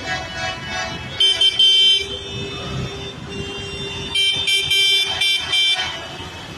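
Vehicle horns sounding over the low rumble of tractor engines: two loud blasts about a second in, then a run of about five quick short toots near the end.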